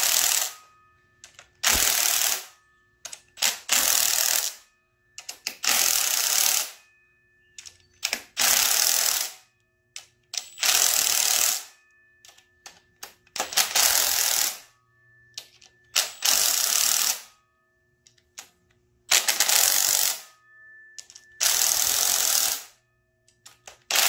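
Cordless impact driver hammering bolts down on the valley cover plate of an LS engine block: about ten bursts of a second or so each, with short pauses between as it moves from bolt to bolt.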